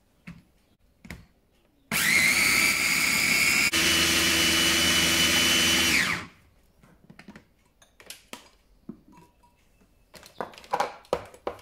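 Electric mini chopper grinding whole coriander seeds, peppercorns and other dry spices: its motor runs loud and steady for about four seconds, with a brief break about halfway, then winds down in pitch. Light clicks come before it, and knocks and scrapes near the end as the bowl is opened and the ground spice stirred.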